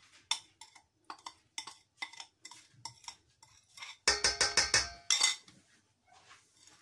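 Spoon scraping and tapping a small bowl to knock seasoning paste out onto raw chicken in a stainless-steel bowl: a run of light clicks and scrapes, then a cluster of louder knocks with a short ringing tone about four seconds in.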